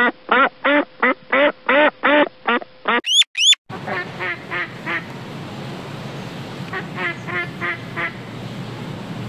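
Ducks quacking: a clean, rapid run of about ten loud quacks, then two quick rising whistles about three seconds in, then, over a steady background hiss, softer quacks in short runs of four or five.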